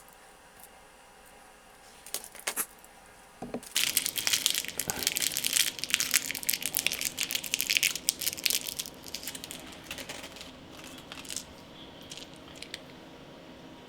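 Plastic packaging crinkling and rustling as it is handled, loud for about five seconds and then fainter, after a couple of light clicks.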